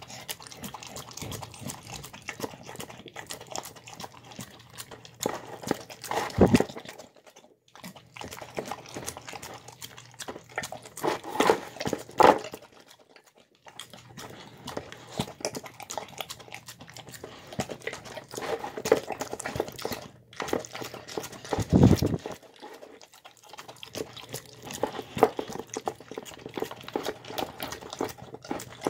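A dog eating soft, mashed food from a bowl: steady wet chewing and licking, with louder stretches about six, twelve and twenty-two seconds in, each followed by a short lull.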